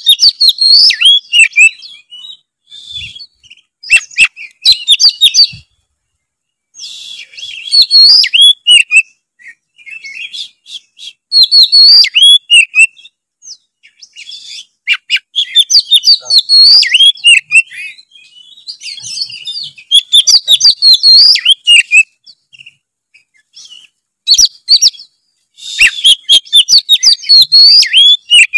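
Oriental magpie-robin (kacer) in full, vigorous song: loud bouts of rapid, varied whistles and sharp chirps broken by short pauses, with about a second of silence around six seconds in. This is the kind of song played to provoke other magpie-robins into singing.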